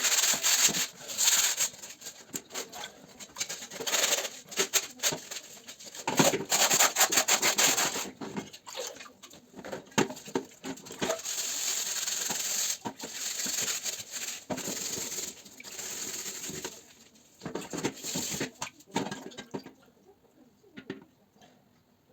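Scrubbing and rubbing on the rusted steel shell of an M35 helmet during cleaning, in irregular bursts of rough strokes with short pauses, turning faint near the end.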